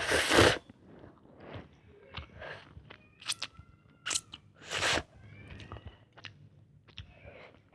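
A person eating ramen close to the microphone: chewing and biting, with a loud noisy burst right at the start and three shorter loud bursts around three to five seconds in, small wet clicks between.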